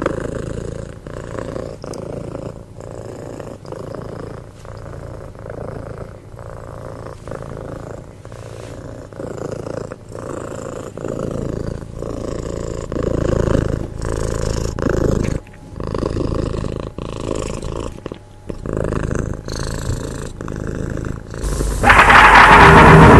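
Domestic cat purring close up, a steady purr pulsing with its breathing. Near the end a much louder droning noise with a steady hum cuts in suddenly.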